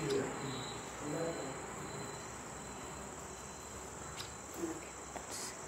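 Crickets trilling in one steady high-pitched tone, with a faint murmur of voices about a second in and a few soft clicks near the end.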